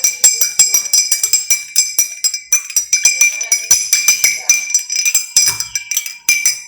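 A spoon stirring briskly in a glass of homemade lemonade, clinking against the glass about five times a second, with the glass ringing between strikes.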